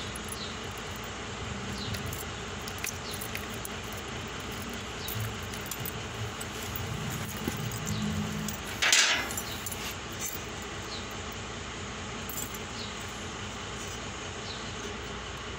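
Small rattles and rustles of a truck's wiring harness being handled and its wires pulled, over a steady background hum, with one short, louder scrape about nine seconds in.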